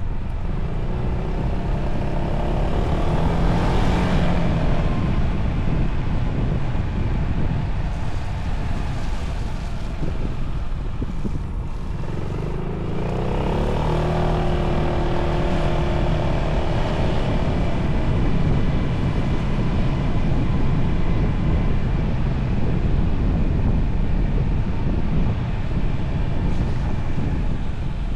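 Yamaha Tricity 300 scooter's single-cylinder engine running under way, with heavy wind rush on the camera microphone. The engine note rises twice as the scooter accelerates, a few seconds in and again about halfway through.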